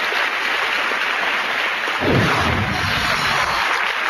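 Audience applauding steadily, with a deep, falling boom about two seconds in that lasts over a second.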